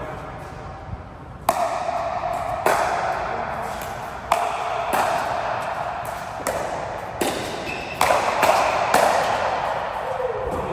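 Sharp hits of play in a match, about nine at uneven intervals, each ringing on briefly in a reverberant room.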